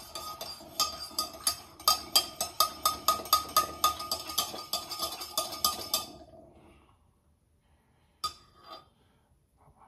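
Metal spoon stirring coffee with half-and-half in a cup, clinking against the side about three times a second for some six seconds, then stopping. One more clink comes near the end.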